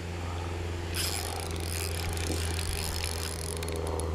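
Spinning reel being cranked, its rotor whirring and clicking as line is reeled in, over a steady low rumble.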